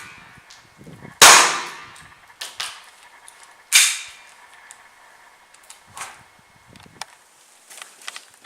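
KJW KP05 1911 CO2 blowback airsoft pistol firing twice, sharp cracks about two and a half seconds apart, each with a short ring. A few light clicks and knocks follow.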